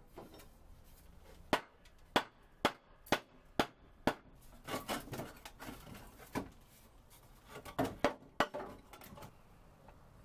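Sharp knocks on wood, five in a row about half a second apart, then scraping and a few more scattered knocks and clatter as wooden shelf boards are worked on the stand of an old lathe.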